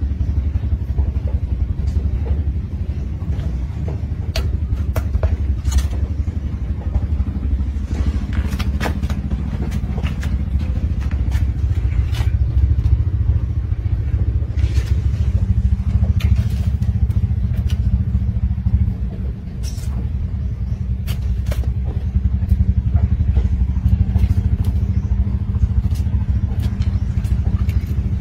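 A motor running steadily with a low rumble, with scattered light clicks and taps over it.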